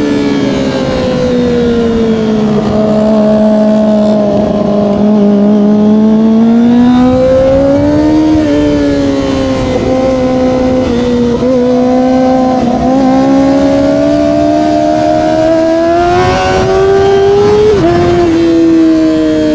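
Kawasaki ZX-25R SE's 250 cc inline-four engine running through an Austin Racing exhaust under way: the revs fall off over the first few seconds, then climb slowly and steadily, with a sudden drop in pitch near the end as it shifts up.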